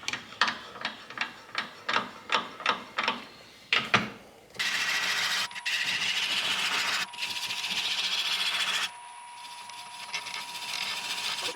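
Turning tool cutting into a green sycamore bowl spinning on a wood lathe. First comes a series of short, sharp cuts about three a second for some four seconds, then a steady shearing hiss for about four seconds, then a quieter cut with a thin steady whine underneath.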